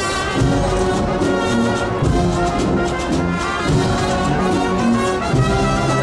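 Agrupación musical, a Spanish processional band of trumpets, trombones and drums, playing a Holy Week march with several brass parts held together over drum strokes.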